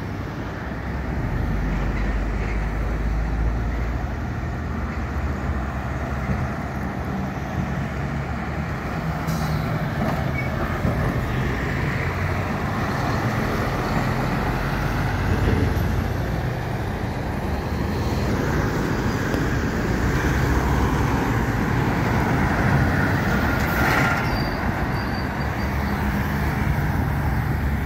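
Heavy road traffic: diesel lorries, cars and vans passing close by, a continuous mix of engine noise and tyre noise.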